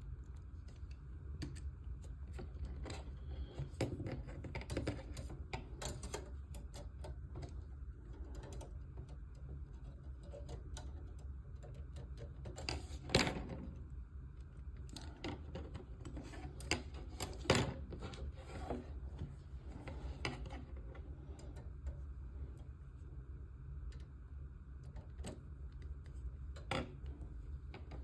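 Scattered small clicks and taps of model parts and a screwdriver being handled while tiny screws are fitted to brackets on a model's frame, with a couple of louder knocks about halfway through, over a steady low hum.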